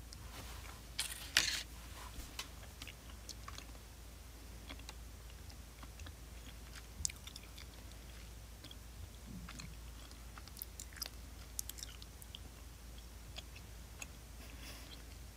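A person chewing and biting a snack, heard as scattered small clicks, with two louder clicks about a second in.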